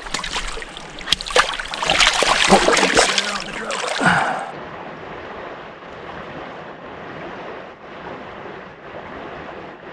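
Water splashing and sloshing at the river's edge for about the first four seconds, then a steady rush of flowing river water and wind.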